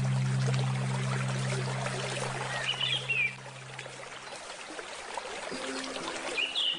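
Flowing stream water trickling and splashing steadily, with a short chirping bird call about three seconds in. A low held musical tone fades out about four seconds in, and soft new notes begin near the end.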